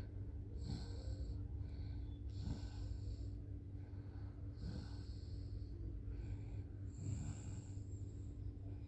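Toddler snoring in sleep, a noisy breath about every two seconds, over a steady low hum.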